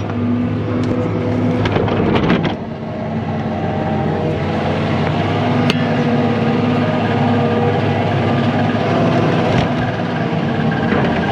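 A heavy engine running steadily under load, with a short cluster of sharp cracks and knocks about two seconds in.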